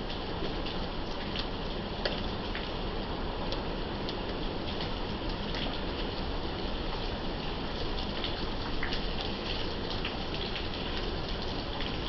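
Steady thunderstorm rain falling, with scattered individual drops ticking close by.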